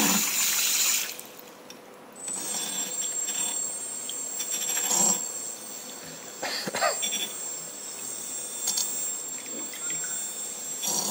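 Water rushing and splashing that cuts off about a second in, then a steady high-pitched whine from about two seconds in with a few short splashy bursts: a brushless motor running submerged in water, which it can do because its magnets and coils have no physical contact and cannot short out.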